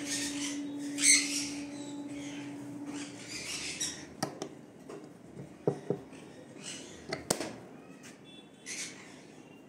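Metal barrel bolt on a wooden nest-box door clicking several times as it is slid back and the hinged door is swung open. Around it are short, harsh, hissy bursts, the loudest about a second in.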